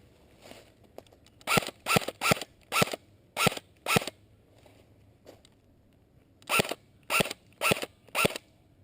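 Airsoft gun fired in single shots, ten sharp cracks in two strings: six about half a second apart, a pause of about two and a half seconds, then four more.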